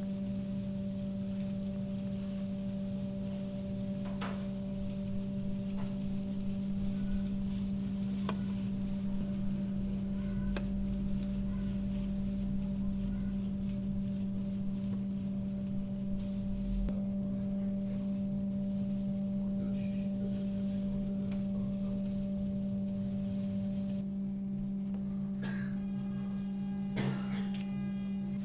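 Steady low electrical hum with fainter higher overtones, unchanging throughout. A few faint clicks are heard, and near the end there are a couple of louder knocks.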